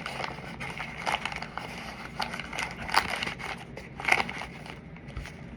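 Irregular crinkling and crackling clicks from food being handled close to the microphone just before eating.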